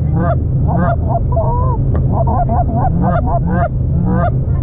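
Goose calls blown in rapid, overlapping honks and clucks, several a second, imitating Canada geese to pull an approaching flock in over the decoys. A steady low rumble runs underneath.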